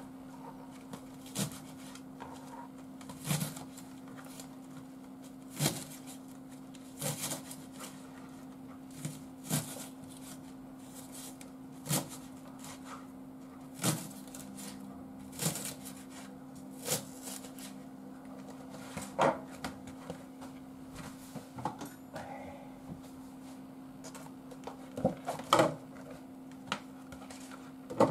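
Kitchen knife cutting Japanese long onions (negi) into chunks on a cutting board: a sharp knock each time the blade meets the board, about one every one to two seconds, with a quicker run of knocks near the end, over a steady low hum.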